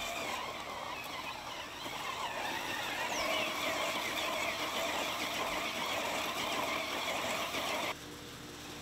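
Six-wheeled robot driving across a lawn: its electric planetary gear motors run and its tyres churn through the grass in a steady rushing noise. The sound drops away sharply about eight seconds in.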